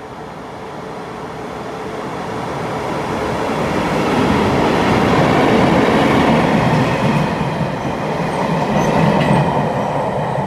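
Taiwan Railways freight train, a locomotive hauling open hopper wagons, passing through an underground station platform. The rumble of the train builds over the first four or five seconds, stays loud while the wagons roll by, and begins to fade near the end.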